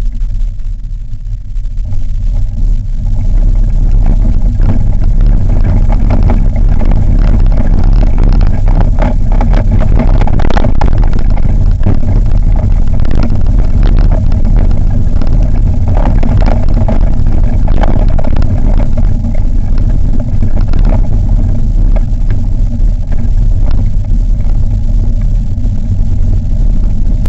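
Heavy rumbling and rattling of a soapbox cart rolling over tarmac, picked up through a camera mounted on the cart, with frequent knocks from bumps in the road. It builds over the first few seconds as the cart, towed slowly in line behind another cart, gets moving.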